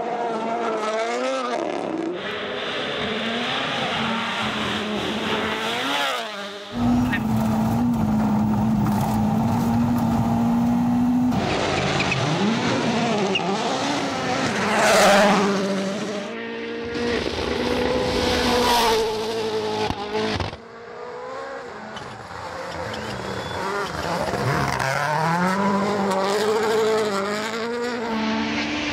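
Rally cars at full attack: engines revving hard and dropping back through quick gear changes. Several abrupt cuts jump from one car or shot to another.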